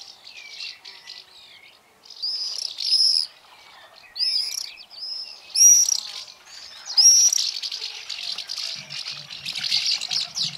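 Songbirds singing: loud whistled phrases of quick rising and falling notes, repeated every second or so and running into a denser stretch of chattering near the end.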